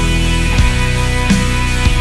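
Background music with sustained chords and a steady drum beat.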